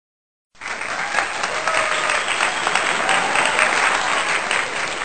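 Applause from a crowd, many hands clapping densely, cutting in suddenly about half a second in after dead silence.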